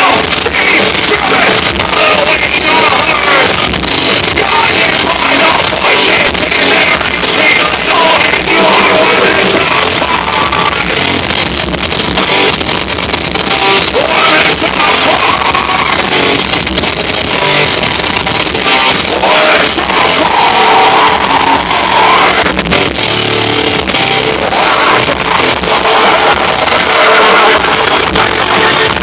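A rock band playing loud and live: electric guitar, drums and singing, heard from within the crowd.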